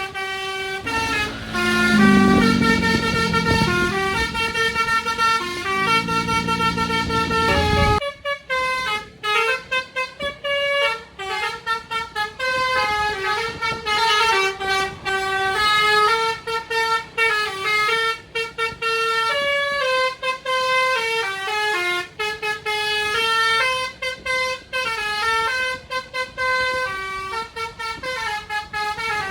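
Basuri musical "telolet" horn on an Indonesian tour bus playing a tune of short stepped notes one after another. A low rumble runs under the first eight seconds and stops abruptly.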